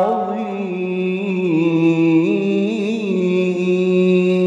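A man's voice in Quranic recitation (tilawah) holding one long chanted note, drawn out at the close of the recitation with 'Sadaq Allah'. A few small melodic turns come in the middle before the note settles and holds steady.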